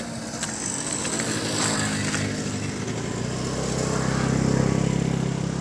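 A motor vehicle's engine running on the road, growing louder over the last couple of seconds as it comes closer, then the sound cuts off suddenly.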